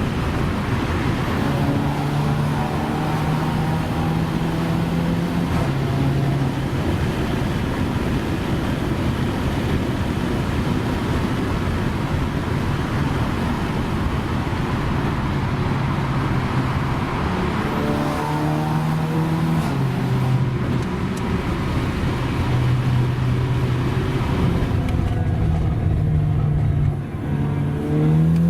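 Volkswagen Golf R's turbocharged four-cylinder engine heard from on board, pulling at a mostly steady speed. The pitch climbs as it accelerates about two-thirds of the way through, and again near the end.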